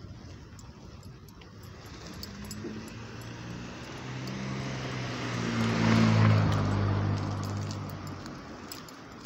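A motor vehicle passing by: its engine and tyre noise rise over a few seconds, peak about six seconds in, then fade away.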